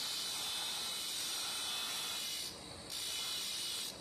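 Thin cut-off disc on a pulley-driven spindle grinding into a steel vise jaw, a loud hissing grind. It breaks off briefly about two and a half seconds in, then grinds again for about a second before stopping.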